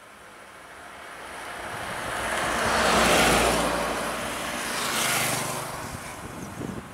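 Motor vehicles driving past close by: engine and tyre noise swelling to a peak about three seconds in, a second smaller swell about two seconds later, then fading away.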